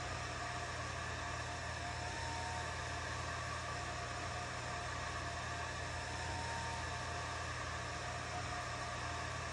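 Atomstack A10 Pro laser engraver running a job: a steady machine hum of its fans and drive motors, with faint motor tones that shift a little in pitch every few seconds as the laser head travels across the tile.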